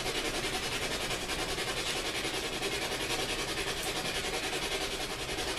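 Ghost box (spirit box) radio scan: a steady hiss of static chopped in an even fast pulse several times a second as it sweeps the stations.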